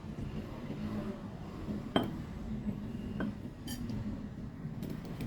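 Utensil clinking against a dish: one sharp clink with a short ringing tone about two seconds in, then a lighter clink about a second later.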